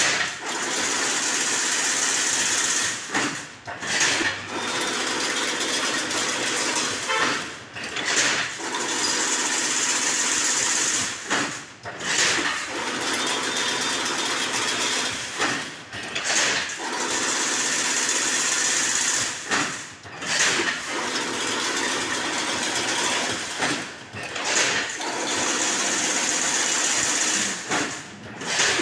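Automatic single-wire chain-link fence making machine running, a steady mechanical whirring and rattling that drops away briefly about every four seconds in a repeating cycle.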